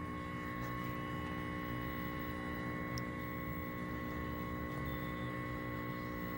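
1965 Curtis Mathes colour television (CTC 17 chassis clone) humming steadily while switched on: a mains hum with a couple of steady higher tones over it, which the owner puts down to bad filtering. A faint click about three seconds in.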